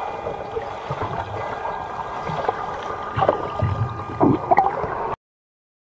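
Muffled underwater sound of a swimming pool heard from below the surface: a steady wash of water noise and gurgling with a few faint steady tones, stirred by a swimmer's strokes. There are louder surges of water a little past three seconds in and again near four and a half, and then the sound cuts off suddenly about five seconds in.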